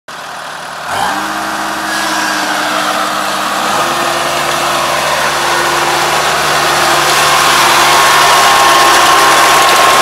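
Kubota ARN460 rice combine's diesel engine running: it speeds up quickly about a second in, holds a steady note, then settles to a different pitch a few seconds later, with a high whine growing toward the end.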